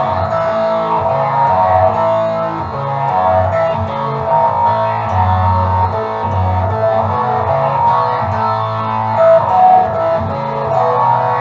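Music led by guitar, with a bass line under it.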